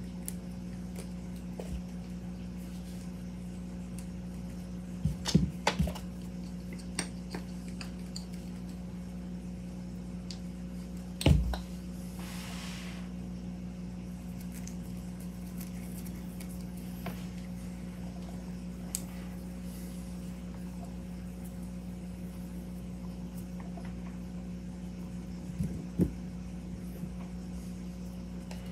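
Steady low electrical hum, with a few light clicks and taps from small parts being handled while O-rings are greased, the sharpest about eleven seconds in, followed by a brief soft rustle.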